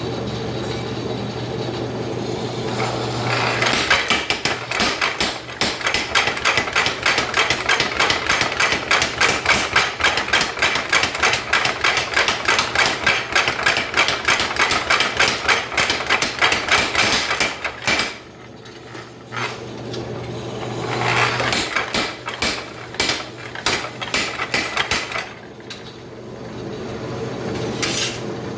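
Power hammer with its motor running, then striking a fast, even run of blows on a flatter tool, about four or five a second. After a short pause it delivers a shorter, uneven run of blows, then a couple of single strikes near the end.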